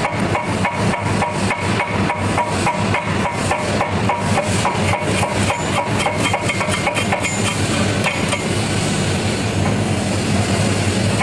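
Stick welding with a 7018 rod on a pipe cap: rapid, regular crackling ticks, about five or six a second, over a steady machine hum. About eight seconds in this gives way to a smoother, even hiss.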